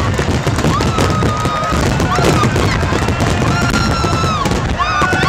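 A rapid-fire starmine fireworks barrage: shells bursting and crackling densely and continuously, with music playing loudly over it.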